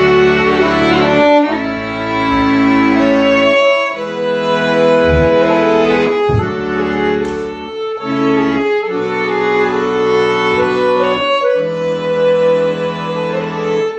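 Instrumental music with bowed strings, violin over low cello-like parts, playing long held chords that change every second or two.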